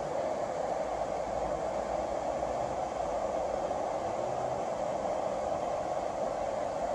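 Steady rushing of a shallow river running over rocks, an even noise that does not change.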